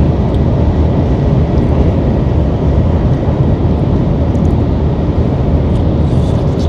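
Steady low rumble of a moving train, heard from inside the passenger cabin.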